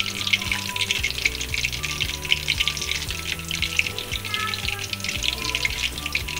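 Gram-flour pakoras deep-frying in hot oil, with a dense, steady crackling sizzle. Background music with low held notes plays underneath.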